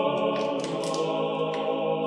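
Closing music: a choir singing sustained, held chords.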